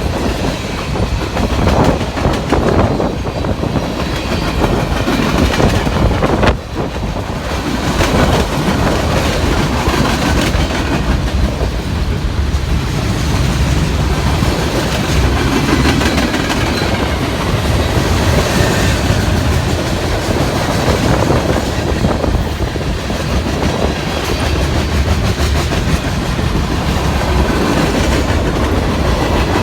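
CSX M367 manifest freight train's cars rolling past, their steel wheels clacking steadily over the rail joints.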